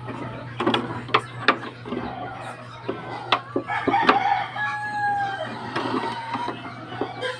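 A rooster crows midway through, one long drawn-out call. Around it come short clicks and crackles of a large plastic bottle being handled.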